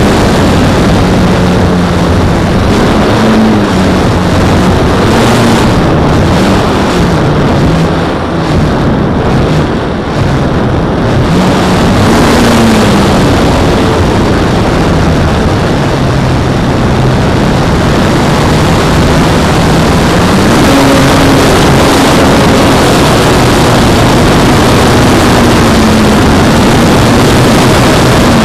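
Motor and propeller of an Extreme Flight Edge 540T 48-inch RC aerobatic plane in flight, heard from an on-board camera under heavy wind rush on the microphone. The motor pitch rises and falls with the throttle through the manoeuvres, easing off briefly about eight seconds in.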